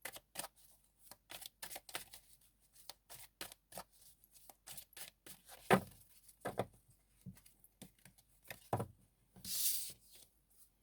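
Tarot cards being shuffled and handled by hand: a run of quick, irregular card snaps and slaps, with a longer swish of cards near the end.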